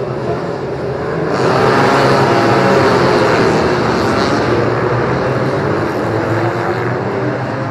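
A pack of classic racing motorcycles passing at speed down the straight, several engines running at once. The sound swells about a second and a half in, then slowly fades.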